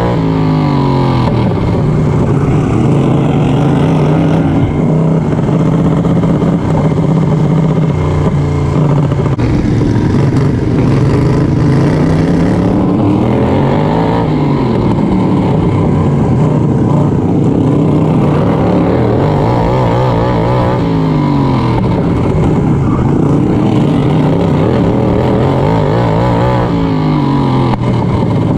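Racing lawn mower's engine heard from on board, running hard, falling in pitch as it eases off for each turn and climbing back as it accelerates down each straight, several times over.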